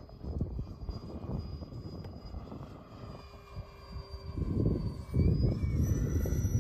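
Electric ducted fans of a large RC Gulfstream G800 model jet whining as it flies over. The high whine dips and then climbs in pitch near the end, while a low rushing noise grows louder from about four and a half seconds in.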